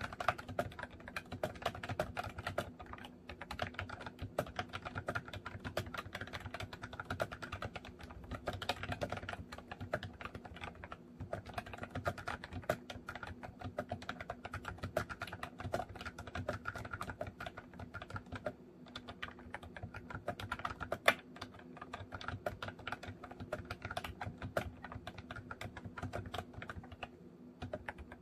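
Continuous typing on a MOFii Retro Style Candy keyboard: a dense, unbroken stream of key clicks, with one louder clack about two-thirds of the way through.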